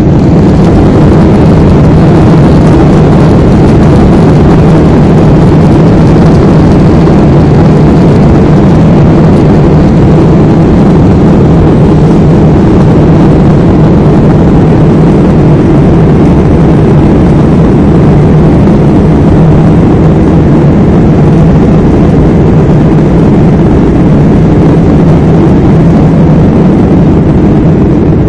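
Jet airliner's engines at takeoff power, heard inside the cabin during the takeoff roll and lift-off: a loud, steady rush with a low drone underneath.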